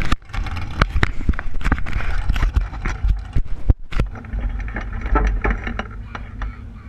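Handling noise on a car-mounted camera: a rapid, irregular run of knocks and rubbing close to the microphone for about four seconds, then only a few taps over a low steady rumble.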